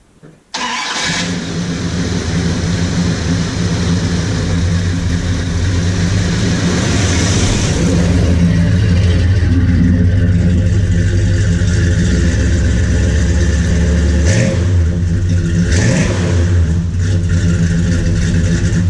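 1979 Chrysler Cordoba's 360 V8 running, with two short revs near the end.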